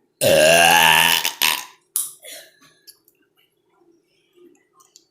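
One long, loud burp lasting about a second, with a clear pitch, followed by a couple of brief, quieter noises.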